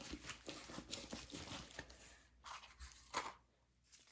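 Plastic packaging crinkling and rustling as it is handled, in short irregular crackles, with a brief lull near the end.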